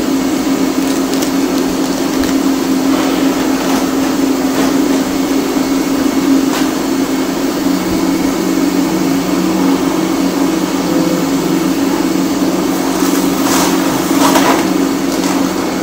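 DBF-1000 continuous band sealer running with its air blower on: a steady motor hum under a rush of blowing air. A few short rustling clicks near the end as a foil snack packet is fed in.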